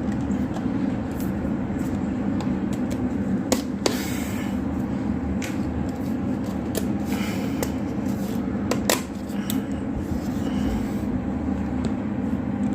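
A screwdriver scraping and prying at a painted-over plastic wall-socket plate, with scattered clicks and short scrapes, over a steady low hum.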